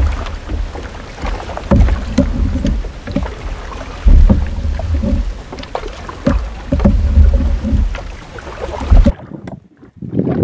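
Canoe being paddled through shallow water among lily pads: paddle strokes and water splashing, with short knocks, under heavy gusting wind rumble on the microphone. About nine seconds in it cuts suddenly to quieter paddling.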